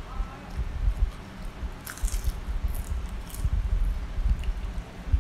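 Close-up chewing of fried grasshoppers: a steady low mouth thumping with several crisp crunches about two, three and three and a half seconds in.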